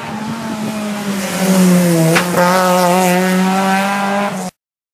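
Rally car engine running at high revs as the car goes by on the stage, its pitch dipping about two seconds in with a short sharp crack, then holding steady until the sound cuts off suddenly.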